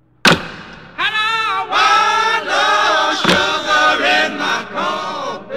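A song with voices singing a wavering melody, struck through by a sharp percussive hit shortly after the start and another about three seconds later.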